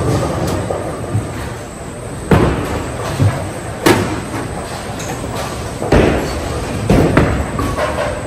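Bowling alley din of balls rolling, broken by four sharp crashes of balls striking pins, spaced a second or two apart.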